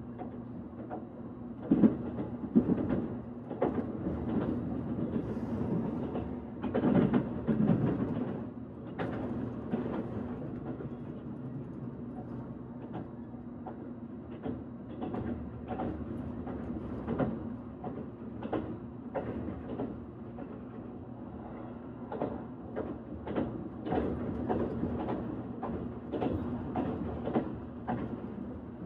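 Train running on rails: a steady low hum with frequent irregular clacks and knocks of the wheels over the track, loudest about two seconds in and again around seven seconds in.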